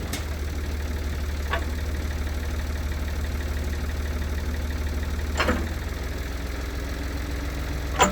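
Ford loader tractor's engine running at a steady speed, a deep even drone, with a few faint knocks.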